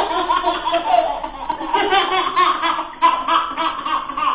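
Two babies laughing together in long runs of giggles and belly laughs, with a short break about three seconds in.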